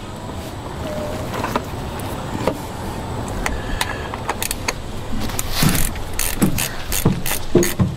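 Ratchet wrench being worked in quick strokes, a run of sharp clicks starting about halfway in and getting louder toward the end.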